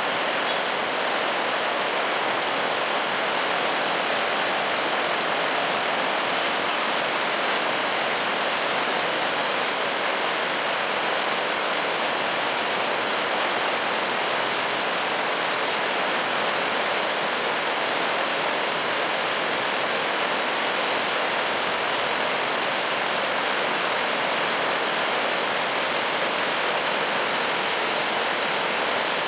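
Turbulent river floodwater rushing and churning through a breach in an earthen road embankment, a steady, unbroken rush of water.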